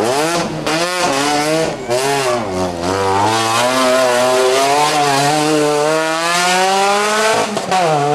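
Volkswagen Golf Mk3 rally car engine revving hard. The revs swing quickly up and down for the first few seconds, then climb in one long pull, drop sharply at a gear change near the end and climb again.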